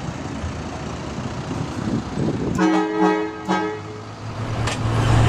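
A vehicle horn sounds for about a second, with a brief break partway through, over the low rumble of a running engine.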